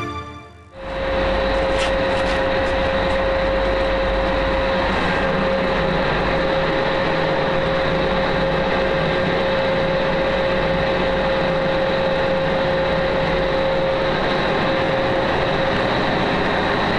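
Steady drone of a lifeboat's engines heard inside its cabin, with a whine held at one pitch throughout.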